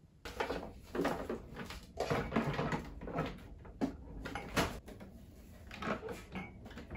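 De'Longhi espresso machine being handled and set in place on a countertop: an irregular string of knocks, clunks and rubbing sounds.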